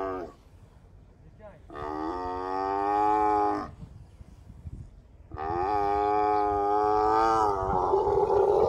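Dromedary camels calling with long, drawn-out pitched moans: the end of one call at the start, then two calls of about two seconds each. The last call turns rough and raspy near the end.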